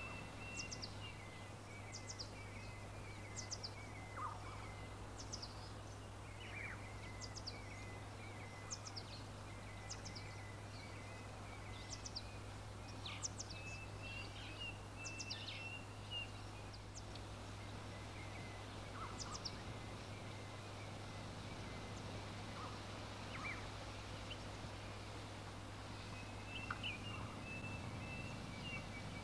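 Small birds chirping and twittering in the background: many short, high chirps scattered throughout, over a steady low hum.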